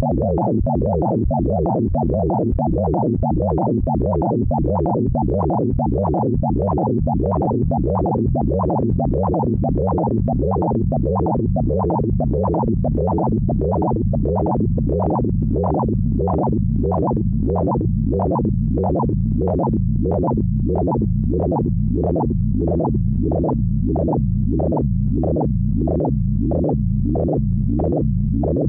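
Computer-synthesized tones generated from a photograph's pixel colour values (a Pure Data sonification): a steady low drone under higher tones that pulse in a quick, regular rhythm, the pulses growing more distinct in the second half.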